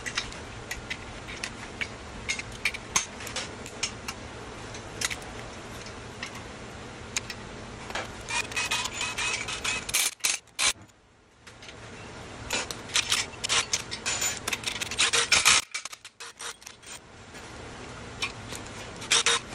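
Hand ratchet clicking in quick runs as the main bearing cap bolts of an LS V8 block are backed out, with short pauses between runs.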